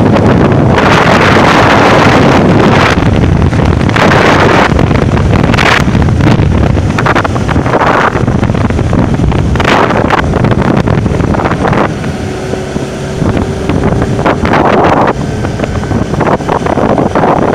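Wind buffeting the microphone over a Bajaj Pulsar NS200's single-cylinder engine as the motorcycle is ridden. The wind eases for a few seconds past the middle, where a steady engine hum shows through.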